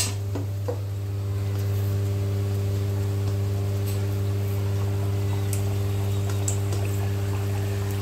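A puri deep-frying in hot oil, a steady bubbling sizzle with a few faint pops, over a constant low electrical hum.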